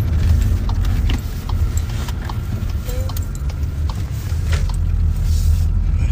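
Steady low rumble of a car heard from inside the cabin, with scattered light clicks and rattles over it.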